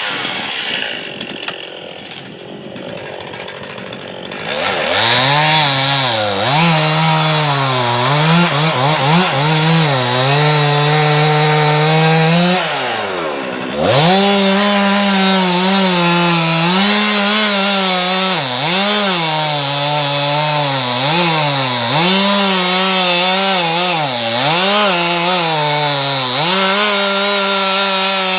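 Two-stroke chainsaw with an 18-inch bar, quieter for the first few seconds, then at high revs cutting into a tree stump. Its pitch sags and recovers again and again under load, and drops briefly about halfway through before the saw picks up and cuts on.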